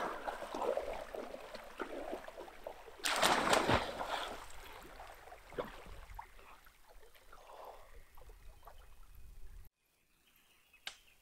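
A person wading through shallow, knee-deep river water with splashing steps. About three seconds in comes the loudest splash as he drops into the water, followed by smaller paddling splashes that fade away. The sound cuts off suddenly near the end.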